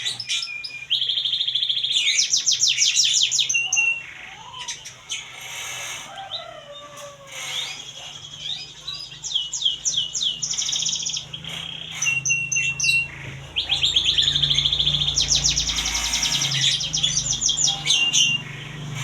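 Songbird calls from a masteran recording: fast runs of repeated high chirps and trills, broken by a few short held whistle notes and quieter gaps, over a low hum that is strongest in the second half.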